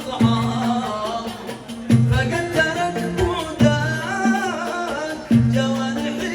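Yemeni song with a wavering melody line over a deep, pitched drum stroke that falls about every second and a half to two seconds.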